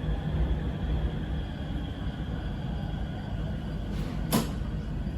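Steady low rumble inside an electric metro train carriage, with one sharp click about four seconds in.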